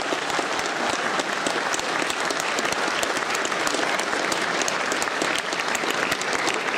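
A large audience applauding steadily in a full auditorium, a dense sustained clapping with some cheering.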